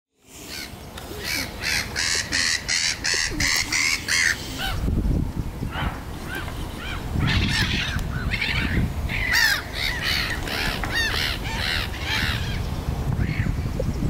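Waterbirds calling: a fast run of short, nasal calls, about three a second, for the first four seconds, then more scattered short calls. A low rumble runs underneath from about five seconds in.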